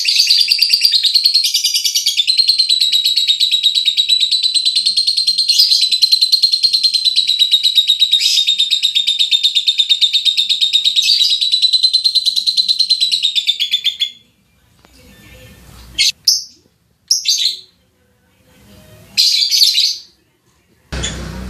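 Lovebird singing one long, fast chattering trill for about fourteen seconds, then a few short calls near the end.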